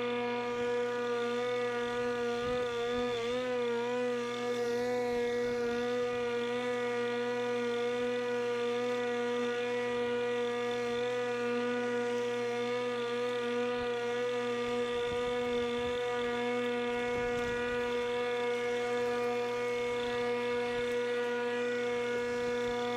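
Pellenc Rasion 2 Easy battery lawnmower's electric motor and blade running with a steady, even hum, its pitch dipping briefly about three seconds in.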